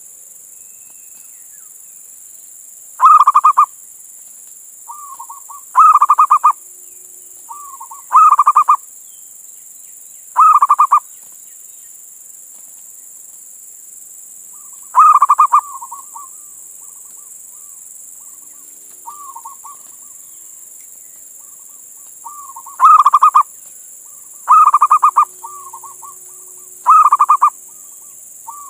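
Male zebra dove (perkutut) cooing. Eight loud, stuttering, trilled coos about half a second long, each usually led in by a few softer clipped notes, come in phrases a few seconds apart over a steady high hiss.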